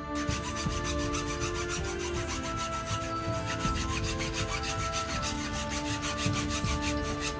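A metal hand file rasping quickly back and forth across bamboo pegs set into the tips of a wooden slingshot fork, in fast, even strokes.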